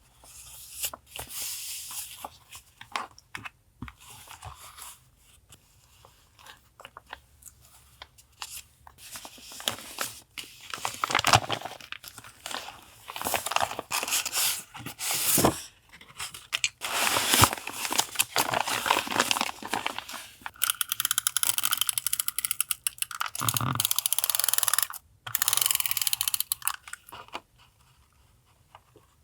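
Collage paper being handled at a desk: rustling, crinkling and tearing in irregular bursts, with one longer continuous rasp lasting a few seconds about three-quarters of the way in.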